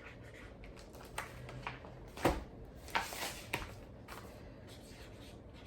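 A few light knocks and clicks from kitchen items being handled, the sharpest about two seconds in.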